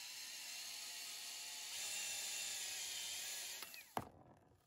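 Power tool spinning a socket on the forcing screw of a two-jaw bearing puller, a steady whirr that swells a little in the middle as it draws a pressed-in bushing out of an impact driver's casing, then stops; a single sharp click follows a moment later.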